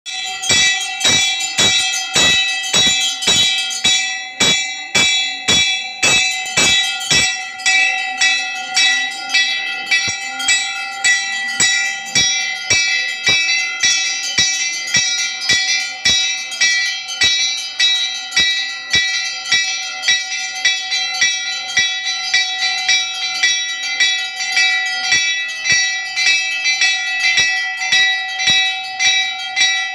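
Metal temple bell rung continuously, about two strokes a second, its ringing carrying over from one stroke to the next. It is rung during the aarti, while the priest waves the camphor lamp before the deity.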